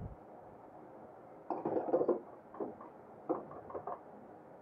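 Metal tools and parts clinking during motorcycle repair work: a short cluster of clatter about a second and a half in, then a few lighter single clicks.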